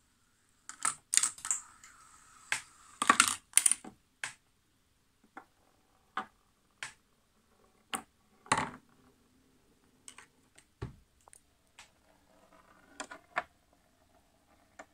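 Clicks and clacks of a homemade marble-run chain-reaction machine: glass marbles rolling and knocking against wooden rails, and small wooden and plastic parts tipping over and striking the wooden desk. The clatter comes thick and fast through the first four seconds or so, then thins out to single knocks every second or two.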